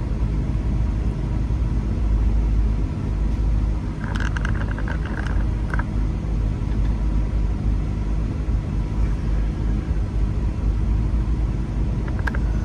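Steady low rumble of a car's engine and tyres heard from inside the cabin while driving. About four seconds in a brief higher sound of several tones lasts for about a second and a half, and near the end there are a couple of short clicks.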